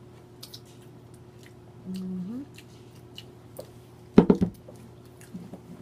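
Close-up mouth sounds of a person eating: soft wet chewing and lip-smacking clicks, with a short closed-mouth hum about two seconds in. Just past four seconds comes one brief, loud, low sound.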